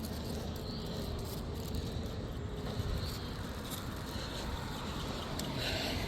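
Crickets chirping faintly over a steady low rumble.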